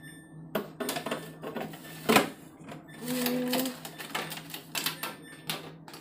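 Jars and steel containers clinking and knocking on refrigerator shelves as they are moved about, a series of irregular clicks and knocks with one louder knock about two seconds in.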